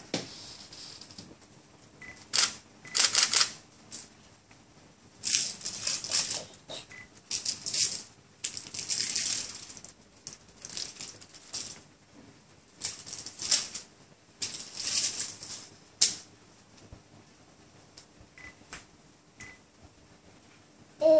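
Clear plastic wrapping crinkling in a baby's hands, in short rustling bursts every second or two with quiet gaps between them.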